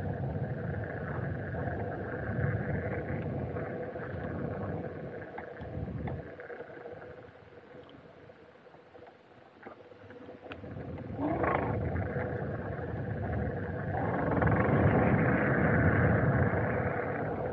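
Running noise from a moving vehicle. It goes steady with a faint held whine, drops off for a few seconds in the middle, then comes back with a quick rising whine and builds up louder again.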